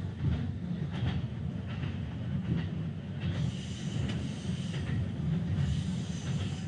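Keikyu 1000-series electric train running at speed, heard from just behind the driver's cab: a steady rumble of wheels on rail with occasional clicks over rail joints. About halfway through, a thin high squeal from the wheels joins on the curve.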